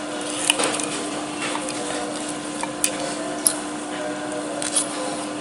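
Small metal parts of an airgun chamber's hammer assembly, the hammer spring and a stainless steel spring cap, handled and knocking together in a few sharp clicks, over a steady background hum.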